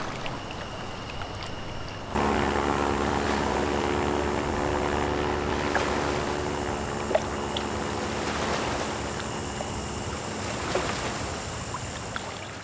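Single-engine floatplane's propeller engine running steadily. It comes in suddenly about two seconds in and eases off slightly toward the end.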